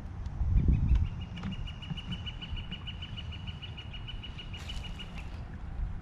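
Wind buffeting the microphone in a low rumble, strongest in a gust about half a second to a second in. Behind it a bird sings one long trill of rapid, evenly repeated high notes lasting about four seconds.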